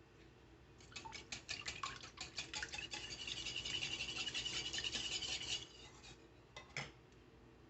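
A utensil beating batter ingredients by hand in a bowl, clicking against its side. It starts as separate strikes about a second in, speeds up into a fast, steady beating, stops about six seconds in, and two more taps follow near the end.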